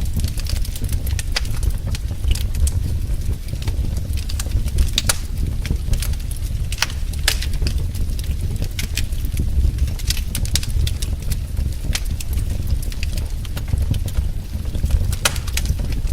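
Wood fire crackling: frequent irregular sharp pops and snaps over a steady low rumble of the burning fire.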